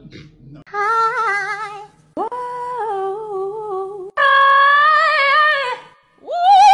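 A high voice singing a few long held notes with a wavering pitch, each a little higher than the last; the final note slides upward.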